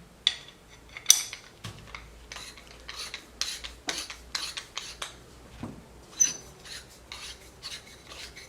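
Metal-on-metal clicks and scrapes as a spanner key works the threaded nut loose on a LUVO rifle suppressor, in short, irregular strokes. There is a sharper clink about a second in and another near six seconds with a brief ring.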